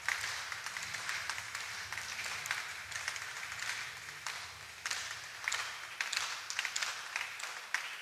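Shooting-hall crowd noise: a steady murmur from spectators with many scattered claps and clicks, more of them in the second half.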